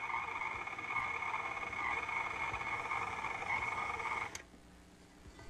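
Electric stand mixer running with its dough hook kneading bread dough, a steady whine, switched off abruptly about four seconds in.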